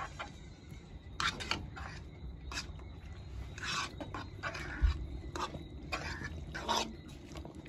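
A spatula stirring and tossing stir-fried pasta and vegetables in a frying pan on a gas burner, in irregular scraping strokes, with one dull knock about five seconds in.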